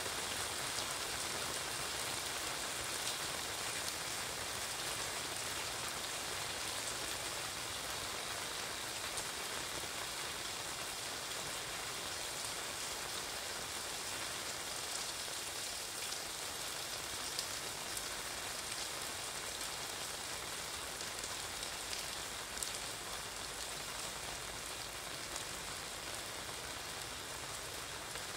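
Steady rain falling on wet pavement and pattering on an umbrella overhead, an even hiss with a few sharper drop taps.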